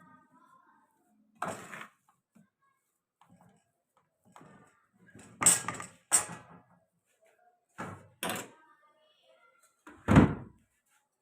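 A series of about six sharp knocks and thuds a second or more apart, the loudest a deep thud near the end.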